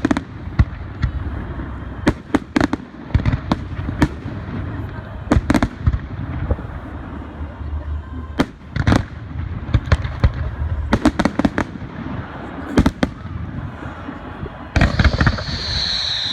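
Fireworks going off: sharp bangs at irregular intervals, some in quick clusters. Near the end a high, slightly falling whistle runs for about two seconds.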